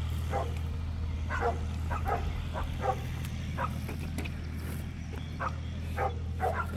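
Dogs barking and yipping, many short barks scattered through, over a steady low hum.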